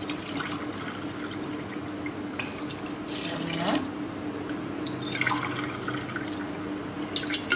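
Water being poured from a steel bottle into a steel tumbler and tipped from the tumbler into a pot of rice and masala, a couple of short pours. This is the cooking water being measured out, cup by cup, for the rice.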